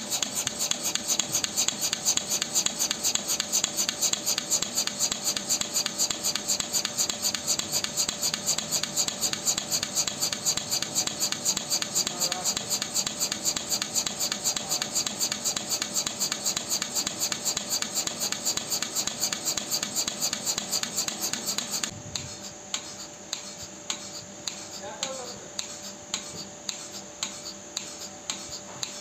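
Milking-machine pulsator running, a fast, even beat of air hisses and clicks as it switches the teat-cup liners between vacuum and air. About three quarters of the way through the beat turns quieter and the hissing drops away. The sound is being judged by ear for whether the pulsator is set right or running abnormally.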